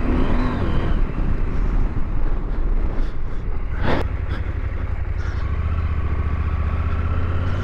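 The KTM 890 Adventure R's parallel-twin engine running as the bike is ridden along a dirt trail. There is a brief sharp noise about four seconds in, and the engine note settles to a steady tone about five seconds in.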